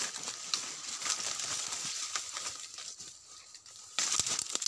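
Rustling and crackling of dry leaves and twigs in forest undergrowth as people move through it: many small irregular crackles, with a louder burst of rustling near the end.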